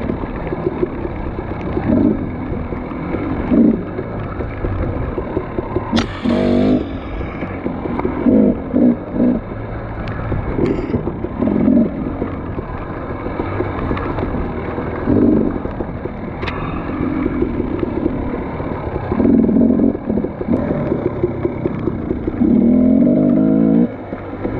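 Off-road dirt bike engine revving in repeated short bursts as the throttle is opened and closed, with a few sharp knocks in between.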